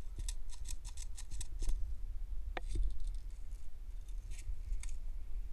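Dry tall grass and brush crackling and rustling in quick bursts as someone moves through it or shifts in it, with a few sharper clicks near the middle. A low rumble of wind on the microphone runs underneath.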